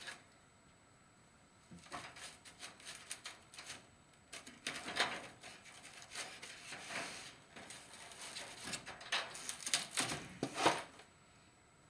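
Chicken-wire mesh being worked by hand against foam board: irregular rustling, scraping and light clicks that start about two seconds in, grow busier in the second half and stop shortly before the end.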